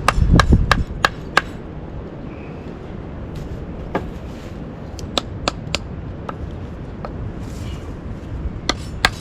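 Batoning wood: a wooden baton knocking on the spine of a blade to split a stick partway lengthwise. Sharp knocks come in irregular runs, a quick series in the first second and a half, then a pause, then more blows around four to six seconds in and again near the end.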